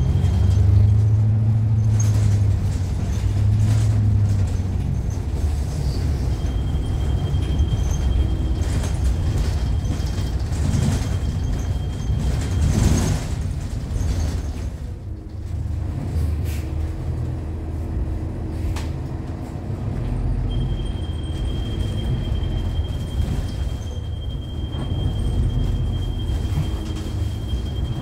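2013 New Flyer XDE40 diesel-electric hybrid city bus heard from inside as it drives, its Cummins ISL9 diesel running with a steady low drone. A thin high steady whine comes and goes, and there is a short hiss about halfway through.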